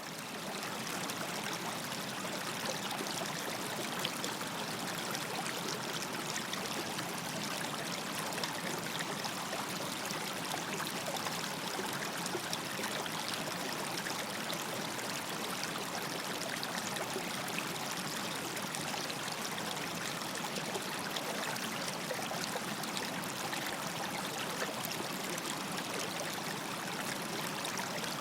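A river running: steady rushing and splashing of flowing water, even throughout with no let-up.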